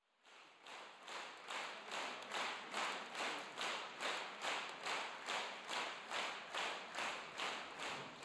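Concert hall audience clapping in unison, a steady rhythmic beat of a little over two claps a second that builds up over the first second.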